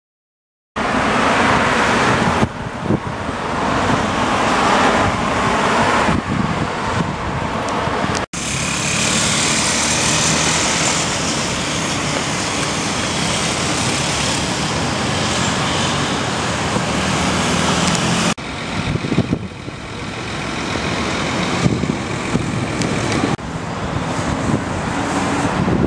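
City road traffic: cars and other vehicles running and passing in a steady, loud wash of traffic noise. It starts suddenly just under a second in and breaks off for an instant about eight seconds in.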